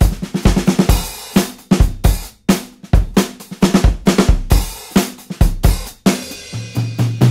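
Background music: a drum kit playing a steady beat on bass drum, snare and cymbals, quickening into a fill near the end.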